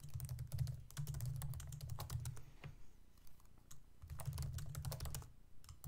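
Typing on a computer keyboard: a quick run of key clicks for about two and a half seconds, a few scattered clicks, then another short run about four seconds in.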